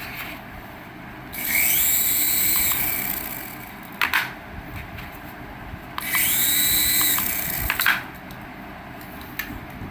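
A small toy electric motor whirs twice, each run lasting about a second and a half, rising in pitch as it spins up and then holding steady. A sharp click comes after each run.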